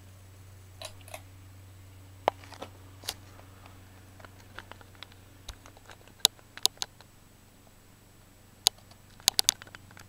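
Old four-blade ceiling fan running, its quiet motor giving a low steady hum. Irregular sharp clicks and ticks sound over it, with several in quick succession near the end.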